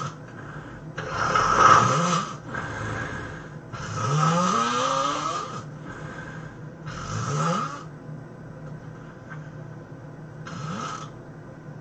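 A person snoring heavily in a run of loud snores with short gaps between them. Some snores rise in pitch, the loudest comes about two seconds in, and a short, fainter one comes near the end.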